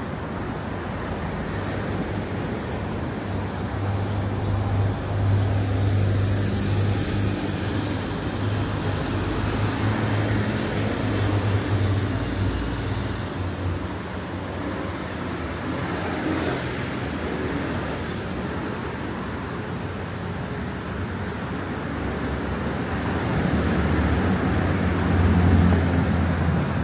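City road traffic: cars passing on the road beside the pavement, a steady rush of tyres and engines with a low hum. It swells twice, once in the first half and again near the end.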